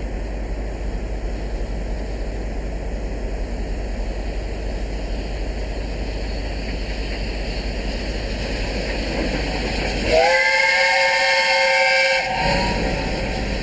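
Whistle of BR Standard Class 7 'Britannia' steam locomotive 70013: one long loud blast of several tones together, starting about ten seconds in and lasting about two seconds as the engine runs through. Before it there is a steady rushing noise, and after it the passing train carries on beneath a fainter whistle.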